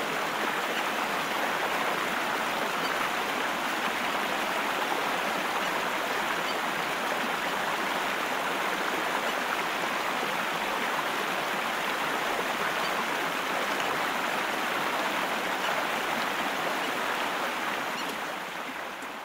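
Steady rush of running water, an even noise without distinct splashes, fading out near the end.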